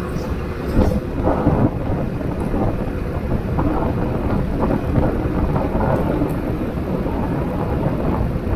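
Strong wind buffeting the microphone on a moving motorcycle, a dense low rumble mixed with engine and road noise, with a few louder gusts about a second in.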